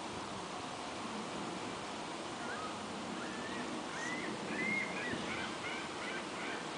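Steady outdoor background hiss. From about two and a half seconds in, a run of short rising-and-falling animal calls starts, two to three a second, and keeps going.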